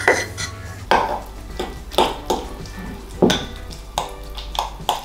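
A knife scraping chopped cherry tomatoes off a wooden cutting board into a bowl, then a spoon stirring them into guacamole. The spoon and knife give a string of sharp clicks and knocks against the bowl at uneven intervals.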